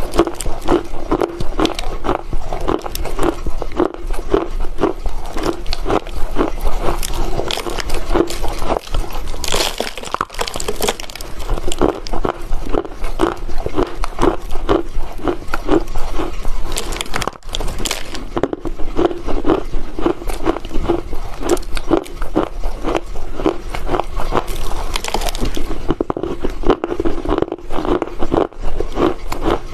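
Chunks of Chinese loess clay being bitten and chewed close to the microphone: dry crunching in quick, steady succession, a few crunches a second.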